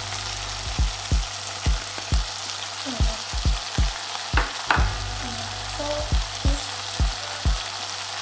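Onion, scallions, tomatoes, parsley and shrimp shells sizzling in oil in a pot while being stirred: a steady sizzle with a dull knock every half second or so, and two sharper clinks a little past the middle.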